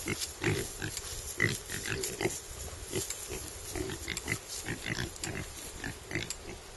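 Piglets grunting, a rapid, irregular string of short grunts mixed with brief high squeaks.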